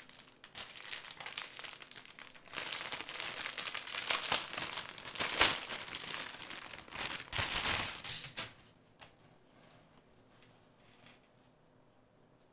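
Plastic packaging crinkling and rustling in quick irregular bursts as a bagged prize towel is handled and unwrapped, loudest past the middle. It stops about two-thirds of the way through.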